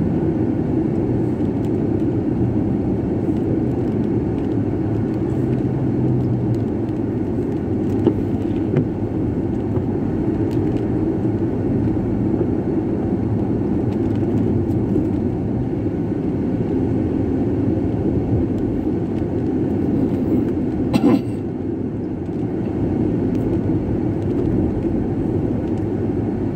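Steady engine and tyre noise of a car driving along a paved road, heard from inside the cabin. A single short knock comes a few seconds before the end.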